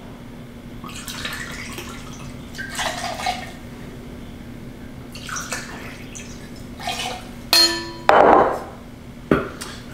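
Vodka poured from a bottle into a copper jigger and tipped into a copper cocktail shaker tin, splashing in two stretches. Near the end comes a ringing metal clink and a short, louder clatter in the tin.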